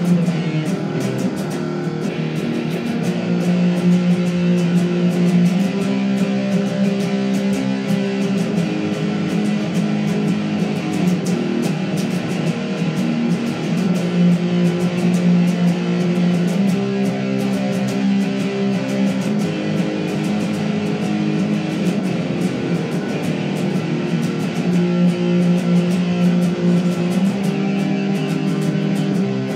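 Guitar music: strummed chords with held notes, the chord changing every few seconds at a steady level.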